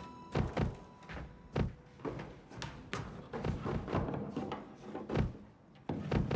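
A series of irregular knocks and thumps, a dozen or so, some sharp and some dull, with the tail of a held music note dying away in the first second or so.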